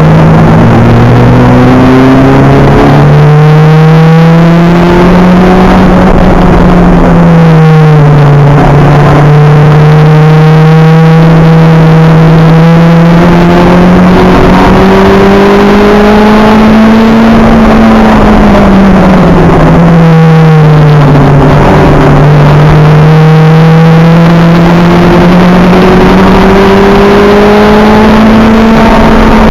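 Acura Integra race car's four-cylinder engine heard on board at racing speed, its revs climbing and falling as it runs through the gears. The pitch dips sharply about seven and twenty seconds in, then climbs again.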